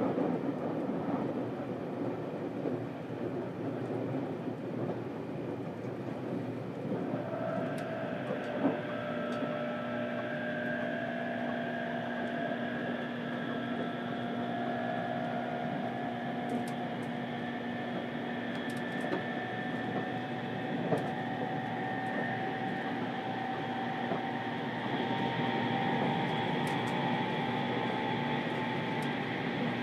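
787 series electric train running, heard inside a passenger compartment of a motor car: a steady rumble of wheels on rail. From about seven seconds in, the traction motors' whine comes in and rises slowly in pitch as the train gathers speed.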